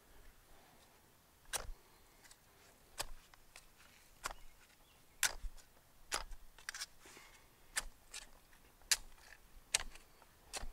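Narrow garden spade stabbing down into soil to dig a planting hole: about ten sharp strikes, roughly one a second and unevenly spaced.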